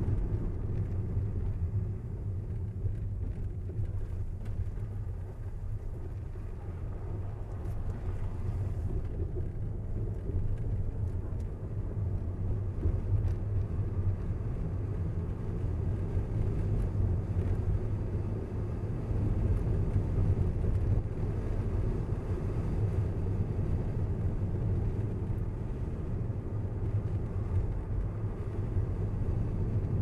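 Car driving along at a steady pace: a low, even rumble of engine and tyres on the road, with no sharp sounds.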